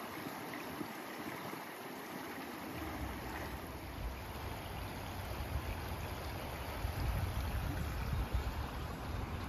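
Steady hiss of water outdoors, with low gusts of wind buffeting the microphone from about three seconds in.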